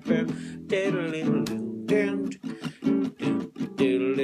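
Acoustic guitar strummed in a choppy rhythm of sharp, clipped strokes, with a man's singing voice coming in over it in short phrases.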